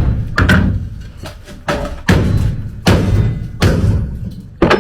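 Hammer blows through a wooden block held against a car's body panel, knocking the panel over to close its gap: a string of loud, dull wooden thuds, about one a second.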